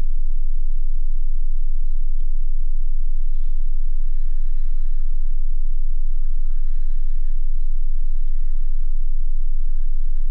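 Loud, steady low-pitched electrical hum on the recording, typical of mains hum, over faint background noise, with a single sharp click about two seconds in.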